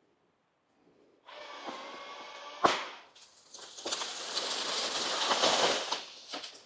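A tree being felled. A steady chainsaw-like drone runs for about a second and a half. Then comes a single loud crack as the trunk gives way, followed by about three seconds of crashing and snapping branches as the tree comes down.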